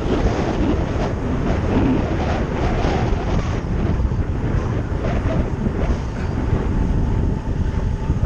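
Wind rushing and buffeting over a helmet-mounted action camera's microphone on a bicycle descending at about 30 mph, a steady loud rumble.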